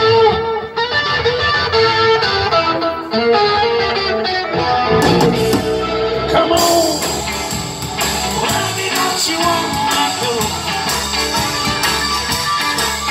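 Live band with electric guitars and drums playing a blues-rock shuffle. The sound fills out in the upper range about six and a half seconds in.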